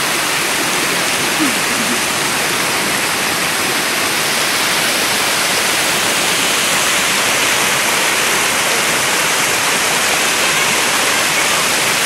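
Waterfall pouring into a rock pool: a steady rushing of water.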